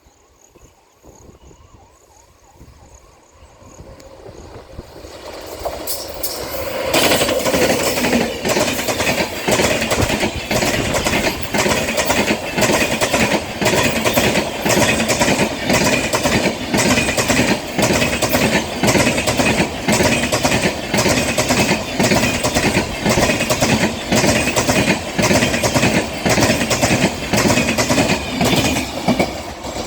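12069 Janshatabdi Express passenger train approaching and then running past at speed. The sound builds over the first several seconds into a loud, steady rush of coaches with a rapid clickety-clack of wheels over the rail joints.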